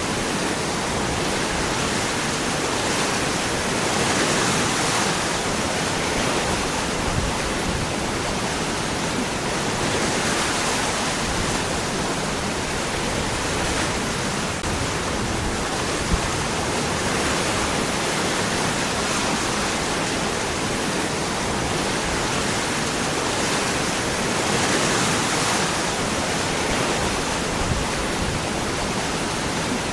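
Waterfall: water falling and rushing over rocks as a steady, dense rush with gentle swells.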